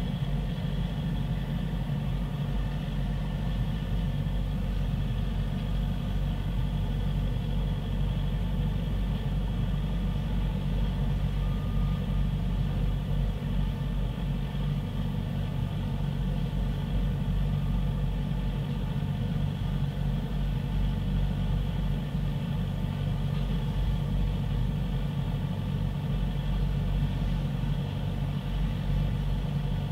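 A large engine idling steadily, a constant low hum that holds one pitch throughout.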